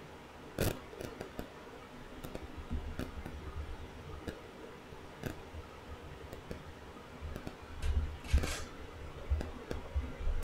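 Quiet room tone with a faint low hum and a few scattered light clicks and taps, the sharpest about half a second in and another about five seconds in, with a short brushing noise near the end.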